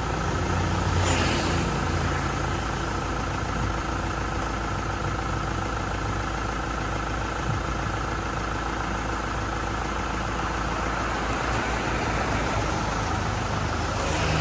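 Vehicle engine idling steadily, with a faint steady high hum over it.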